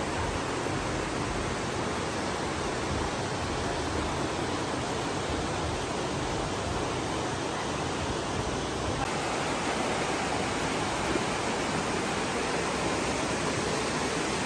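Steady rushing of a fast-flowing river churning over rocks in rapids.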